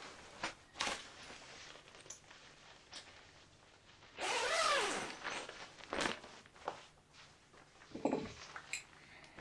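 Nylon bivvy bag being handled: fabric rustling and a few light knocks, with a zip pulled open in one longer stroke of about a second midway.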